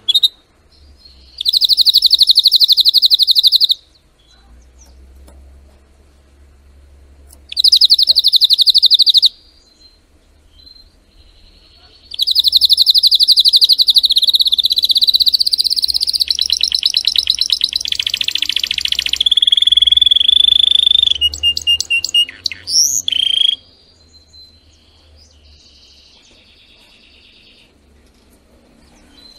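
Canary singing: two short, fast trills a few seconds apart, then a long phrase of rolling trills that drops to a held lower whistle and ends in a few quick notes.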